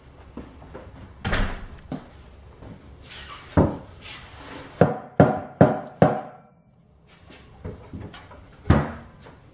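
Scattered sharp knocks and thumps, including a quick run of four in just over a second about halfway through.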